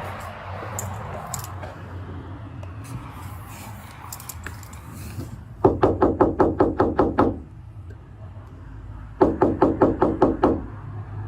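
Rapid knocking or banging on a door, about six blows a second, in two bouts of about a second and a half each, one about halfway through and one near the end, over a low steady hum.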